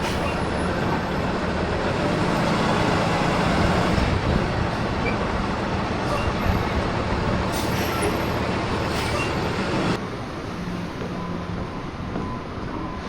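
Heavy vehicle engine and road noise, running steadily. The sound drops and changes abruptly about ten seconds in.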